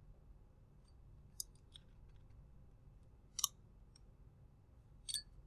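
A few faint, sharp clicks of a small hex driver and tiny screws being handled while fastening a servo to an RC car chassis; the loudest click comes about three and a half seconds in.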